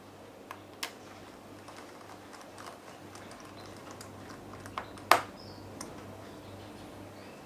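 Scattered small clicks and taps from handling a laptop and small tools on a work surface, with one sharp click about five seconds in, over a steady low hum.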